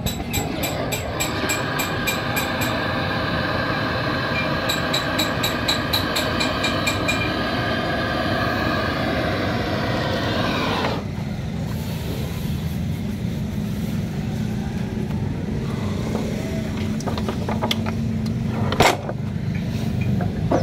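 Engine running steadily as a low drone, with a second, higher engine note over it that cuts off suddenly about halfway through. A single sharp click comes near the end.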